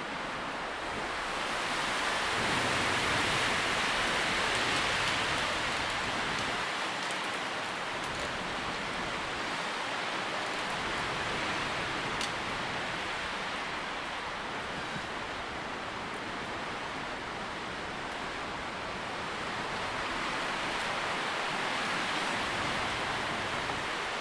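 Wind through tree foliage, a steady rushing rustle of leaves that swells in two gusts, about three seconds in and again near the end.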